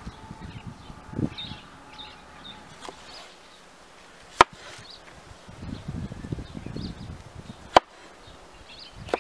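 Chef's knife slicing a tomato on a wooden cutting board, with soft cutting and two sharp knocks of the blade against the board, about halfway through and again near the end.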